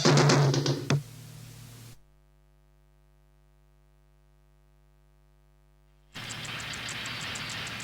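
Harsh electronic noise music: loud, noisy drum-machine-like hits for about the first second, dying into hiss. Then about four seconds of near silence with only a faint low hum. Near the end a steady static hiss with fast, even ticking starts abruptly.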